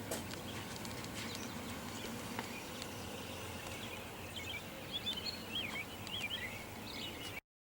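Steady background noise with small birds chirping in quick, wavering notes from about four and a half seconds in. The sound cuts off just before the end.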